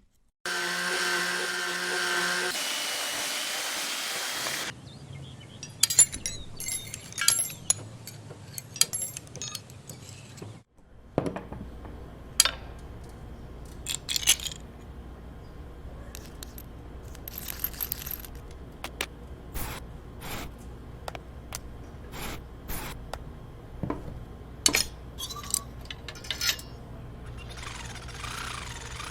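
Workshop sounds: scattered clicks, knocks and clinks of metal tools and parts being handled, over a low steady hum.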